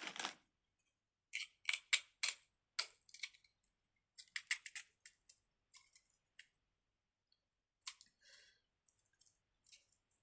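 Plastic Slinky coils clicking and clacking as the toy is handled and stretched: irregular light clicks, in quick clusters for the first few seconds, then sparser.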